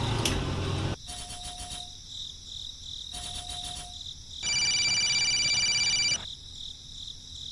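Crickets chirping steadily throughout. A low mechanical hum runs for about the first second and then cuts off. Midway comes the loudest sound, a steady high-pitched tone lasting about two seconds.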